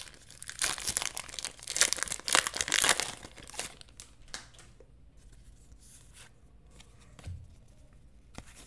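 Foil wrapper of a Pokémon trading card booster pack crinkling and tearing open by hand, loud for about the first three and a half seconds, then giving way to faint handling of the cards.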